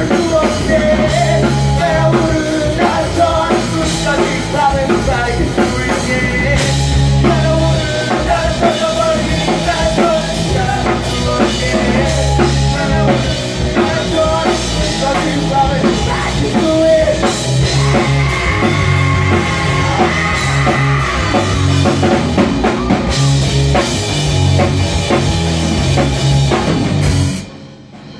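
Live rock band playing: drum kit and electric guitar with a male voice singing, recorded from the audience. The song stops abruptly near the end.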